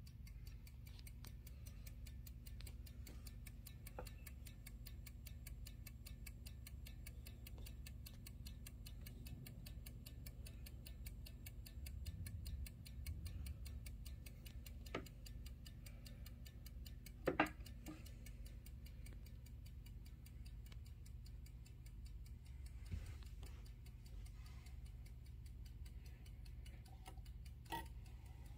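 A 1950s/60s F.W. Elliott striking bracket clock ticking fast and evenly, with a few faint knocks, the loudest about two-thirds of the way through.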